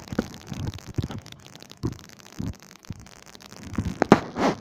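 Handling noise from a handheld camera: irregular low thumps and rubbing on the microphone, with a louder rush of noise near the end.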